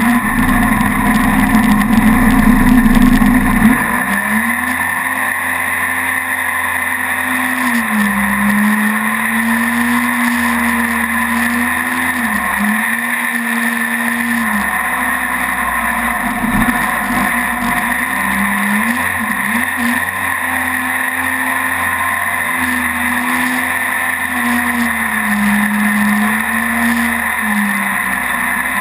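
Mini jet boat's engine running under way, its pitch rising and dipping again and again as the throttle changes. It is heaviest and loudest for the first few seconds, then eases back about four seconds in.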